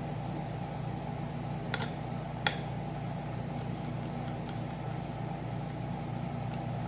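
Air conditioner running with a steady hum, with two light clicks about two seconds in.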